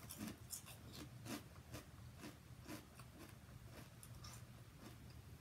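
Faint crunching of barbecue potato chips being chewed: quick crisp crackles several times a second, thinning out after about three seconds.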